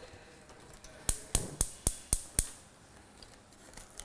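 A metal whisk clinks against a glass mixing bowl: six sharp, evenly spaced clinks, about four a second, from about one second in to two and a half seconds in.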